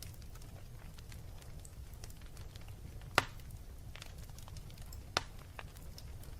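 Wood fire crackling in a fireplace: a low steady rumble with scattered small clicks, and two sharp loud pops about three seconds in and again two seconds later.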